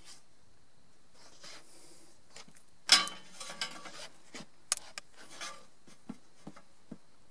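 Handling of a Pedersoli Boarbuster Evolution lever-action rifle: a sharp metallic clack about three seconds in, followed by a scatter of lighter clicks and rattles.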